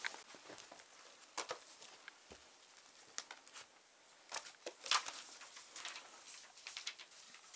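Paper rustling and pages turning as books and loose printed sheets are handled and leafed through, a run of quick, irregular crinkles and flicks.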